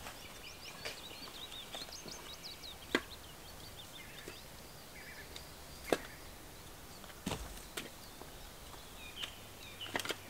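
Split firewood pieces knocking against each other and the chopping block as they are gathered up, a few sharp separate wooden knocks. Small birds chirp and twitter between them.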